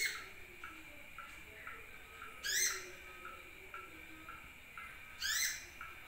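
Sunbird calls: three loud rising sweeping notes about every two and a half seconds, over a steady run of short high chirps about twice a second.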